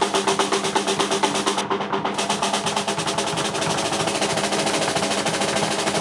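Live drum kit solo: rapid, evenly spaced strokes on the drums at about seven a second, quickening about halfway through into a dense, even roll.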